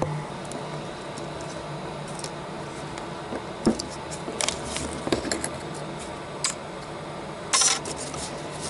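Metal engine parts and tools being handled: a handful of scattered sharp clicks and clinks, with a slightly longer rattle near the end, over a faint steady hum.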